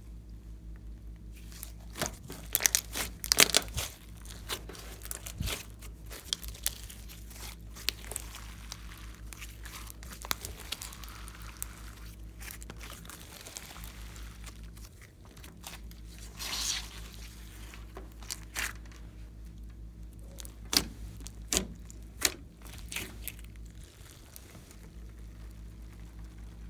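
Slime being worked by hand: sticky squelching with irregular sharp clicks and crackles, in clusters around the start and again near the end, over a steady low hum.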